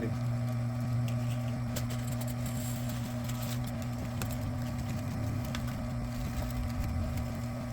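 Vevor electric wire-stripping machine's motor running with a steady low hum, with a few faint ticks.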